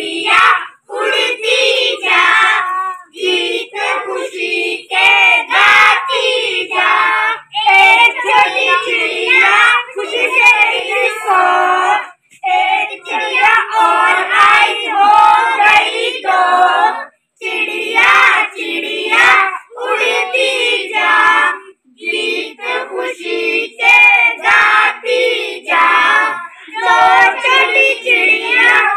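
A group of children singing an action song together in short phrases, with a few sharp claps.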